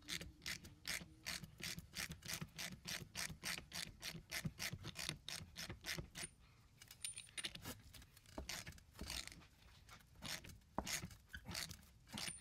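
Hand ratchet clicking in quick, even strokes, about four a second, as it runs the nut down onto a Humvee differential's output flange. After about seven seconds the clicks become sparser and irregular. Tightening the nut is meant to pull the axle shaft out of the carrier and seat it in its bearing.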